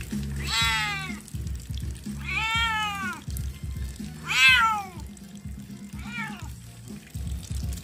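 Wet ginger village cat meowing while it is held and washed: four long meows, each rising and then falling in pitch, the third the loudest and the last one short. Background music with a low bass line plays underneath.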